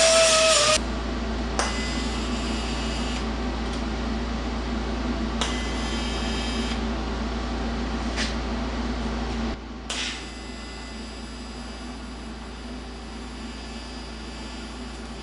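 Steady machine hum in a metalworking shop with a few short bursts of grinding on sheet steel; a louder sound cuts off just under a second in, and the hum drops to a quieter level about nine and a half seconds in.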